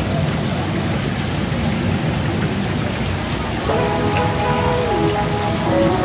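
A steady hiss of splashing water, with background music coming in a little past halfway.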